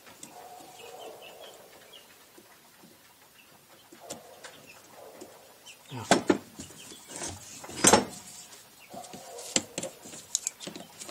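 Sharp metal clicks and clinks of snap ring pliers and a snap ring working against a Napco 4x4 locking hub, loudest about six and eight seconds in. Faint animal calls in the background.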